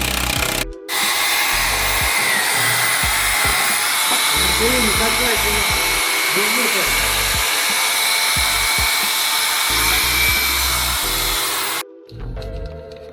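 A power tool running steadily with a high whine, stopping for a moment under a second in, then running on until it stops near the end.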